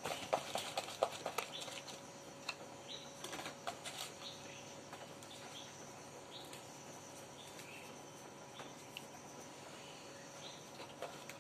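Baking soda being shaken out and sprinkled onto towels in a plastic tub: a quick run of light clicks and taps in the first second and a half, then scattered faint ticks, over a faint steady hum.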